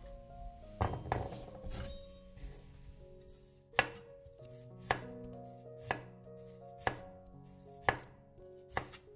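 A chef's knife slicing garlic cloves on a wooden cutting board, each cut ending in a sharp knock of the blade on the board, about one a second. Soft background music plays underneath.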